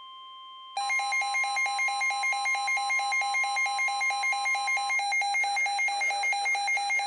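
Steady weather-radio warning alarm tone, a single pitch just above 1 kHz. About a second in, loud rapid electronic alert beeping joins it, about four pulses a second in two pitches, marking an incoming warning. The steady tone stops about five seconds in while the beeping goes on.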